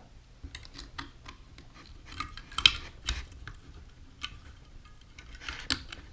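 Small metal clicks and scrapes of a shotgun carrier latch being worked by hand into the receiver against its spring pressure, irregular, the sharpest click about two and a half seconds in and a few more near the end.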